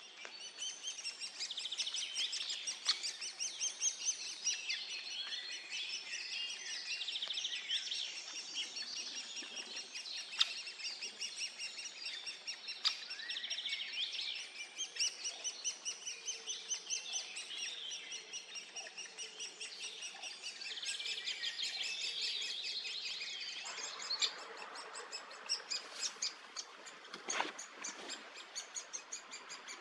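Great spotted woodpecker nestlings begging at feeding time: a continuous chorus of rapid, high chirping calls. About three-quarters of the way through, a rougher rustling noise joins in, and a single sharp knock follows a few seconds later.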